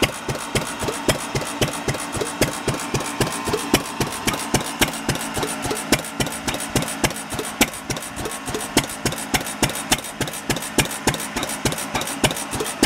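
Fairbanks Morse ZC single-cylinder stationary engine running steadily: an even beat of about three exhaust pops a second without gaps, with sharp clicks over it.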